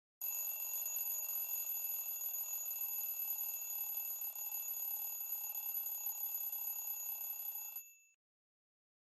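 Honor 8A phone ringtone: a steady telephone-style ring with several high tones over a fast rattle. It rings for about eight seconds, then cuts off.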